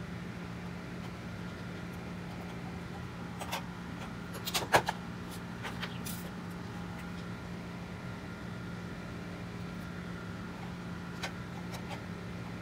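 A few light clicks and taps of 3D-printed plastic cowl parts and metal hemostats being handled, the loudest cluster about a third of the way in and one more near the end, over a steady low hum.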